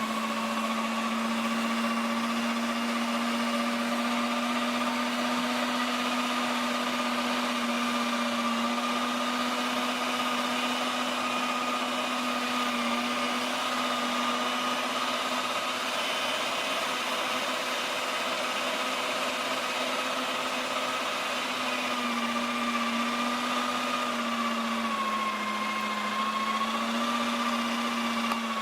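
Cuisinart electric meat grinder's motor running steadily while grinding short ribs and other meat, a constant hum whose pitch sags slightly a few times in the last few seconds.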